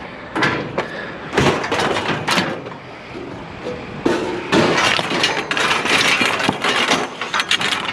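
Scrap metal clanging and clattering as pieces are thrown off a trailer onto a scrap pile: a few separate crashes, then a denser run of clattering from about halfway through.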